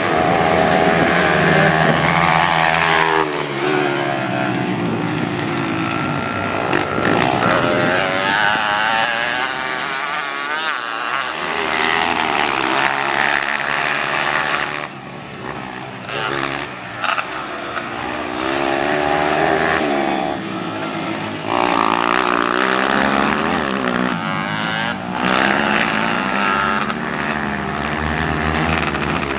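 Small single-cylinder dirt bike engine revving hard, its pitch climbing and falling again and again as the throttle is worked through the gears, with a couple of brief throttle-offs around the middle.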